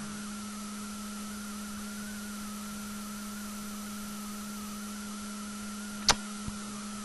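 Steady electrical hum with a faint, slightly wavering higher whine over even hiss: the recording's background noise. A single sharp click about six seconds in.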